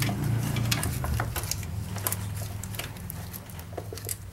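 Scattered light clicks and knocks of hands and tools disconnecting the wiring from a car alternator, over a steady low hum.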